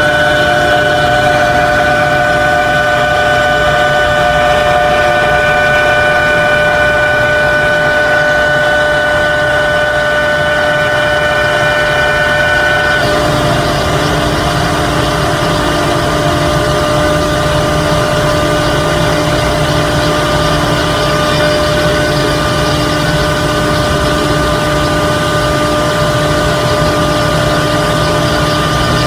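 CNC router spindle whining steadily as its bit cuts into PVC sheet. The steady tones change abruptly about halfway through.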